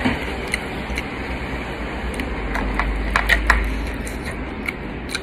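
A person chewing food close to the microphone, with scattered short mouth and finger clicks, a cluster of sharper ones about three seconds in, over a steady background hum.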